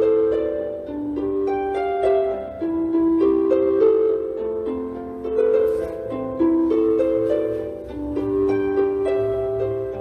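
Instrumental background music: a slow melody of several overlapping sustained notes over a low steady bass.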